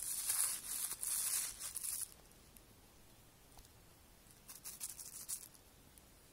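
Thin plastic dog-waste bag crinkling in a jeans pocket as it is pushed in and pawed at. It comes in two bursts: about two seconds at the start, then a shorter, quieter spell about four and a half seconds in.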